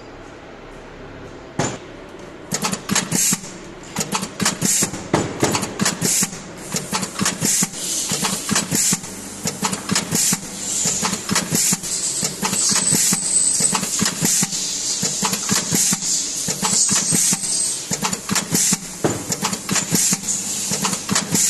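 Automatic O-ring seal assembly machine (Yuanhan YH-DQZP01) running: rapid, irregular mechanical clacking and rattling over a steady hum. It begins with a single knock about two seconds in.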